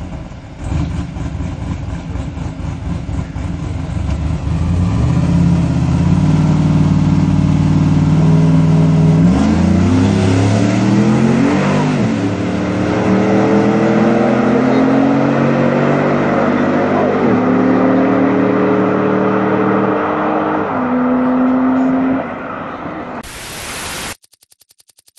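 A Chevrolet Trailblazer SS, with its 6.0-litre V8, and a Porsche accelerating flat out side by side. The engine notes climb in pitch, then drop back at each gear change. Near the end the engine sound fades, and a short burst of noise follows before silence.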